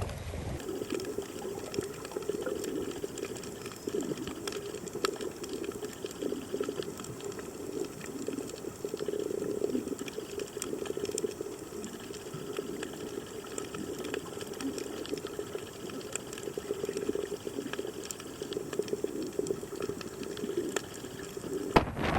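Moving water: a steady, churning sound, strongest low in pitch, with no speech.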